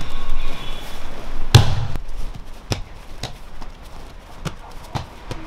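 A heavy thud about a second and a half in, then a run of light, sharp knocks about twice a second.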